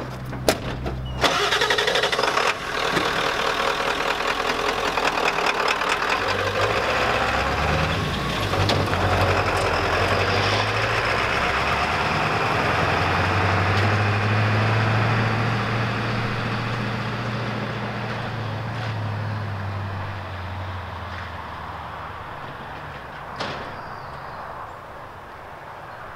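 1998 Ford one-ton's 7.3-liter Power Stroke V8 turbo-diesel starting about a second in, then running as the truck pulls away, its drone shifting a couple of times and slowly fading into the distance.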